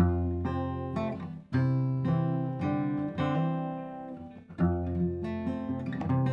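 Instrumental country music on acoustic guitar, with no singing: chords strummed and left to ring, a new one struck every second or so.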